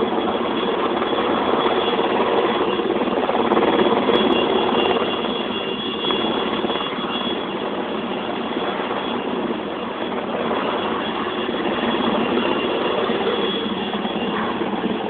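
A helicopter running close by: a steady, dense rotor and engine noise with a thin, high whine on top. It swells slightly about four seconds in and eases a little near the middle.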